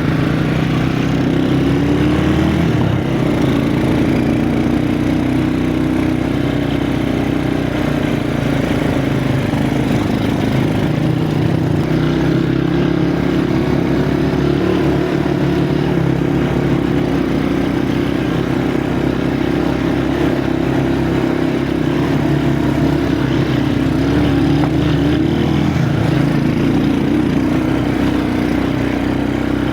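Vehicle engine running steadily at a moderate pace, its pitch drifting a little up and down as the throttle changes.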